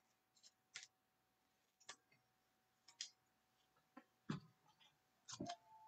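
Faint, sharp clicks of 2021 Topps baseball cards being flicked and shuffled by hand, about one a second.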